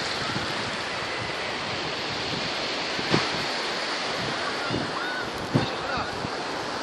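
North Sea surf washing over shallow water: a steady rush of small breaking waves. Two short low thumps, about three seconds in and again about five and a half seconds in, stand out above the surf.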